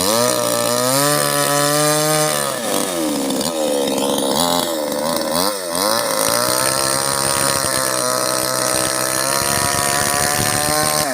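Two-stroke chainsaw running at high revs, its pitch sagging and recovering several times as it cuts into oil palm.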